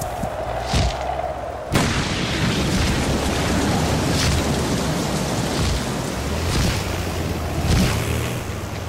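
Storm sound effect: a sudden crack of thunder about two seconds in, then a steady hiss of heavy rain over a low rumble, easing near the end.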